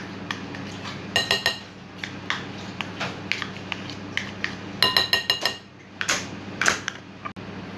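A utensil scraping and tapping butter out of a measuring cup over a glass mixing bowl, clinking against the bowl in two quick runs of ringing clinks, about a second in and about five seconds in, with scattered clicks between.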